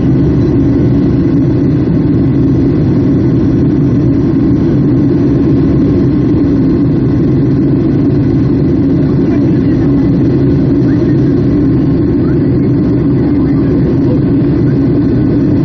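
Steady, loud roar of a Boeing 757-200's jet engines and airflow heard inside the passenger cabin.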